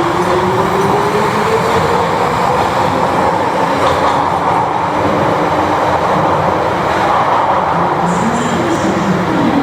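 London Underground 1973 Stock tube train running through the platform, with steady rumbling and rail noise. A motor whine rises in pitch over the first few seconds.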